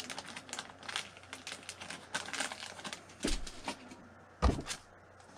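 Plastic bait packaging crinkling and rustling as it is handled. Then two dull thumps, about three seconds in and a second and a half later, the second the loudest.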